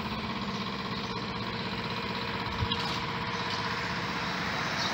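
BKM trolleybus pulling away, its electric traction drive giving a steady hum with several whining tones over the street noise. A single sharp click comes a little past halfway.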